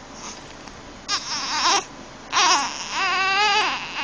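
One-month-old baby fussing with cries: two short cries about a second and two and a half seconds in, then a longer wavering cry. The baby is upset by the hiccups.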